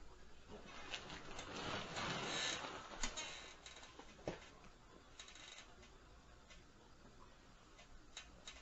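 Faint scattered knocks and clicks, with a stretch of rustling about one to three seconds in and a sharper knock a little past four seconds.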